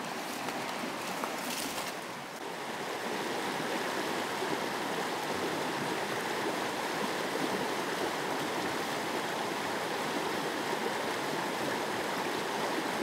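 Spring-fed creek flowing, a steady rush of running water that gets a little louder after about two seconds.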